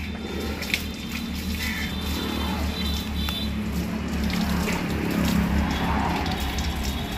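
Water trickling along an open drain, over a steady low hum.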